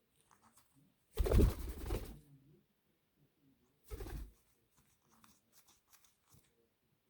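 Parrot noises: two short, loud, harsh bursts about two and a half seconds apart, with faint scratchy ticks between them.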